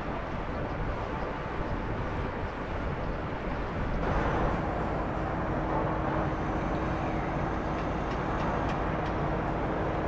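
Steady low mechanical noise of the berthed ferry and harbour machinery; about four seconds in it changes to a lorry's diesel engine running as a tractor unit hauling a tank container drives off the ferry's stern ramp, with a steady hum underneath.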